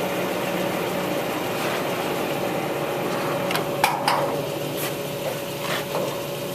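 Harrison engine lathe headstock running steadily in its 50 RPM spindle range, a quiet, even hum that marks the gearing as sound in this range. Several sharp clicks and knocks come in a cluster about halfway through, and the hum drops slightly after them.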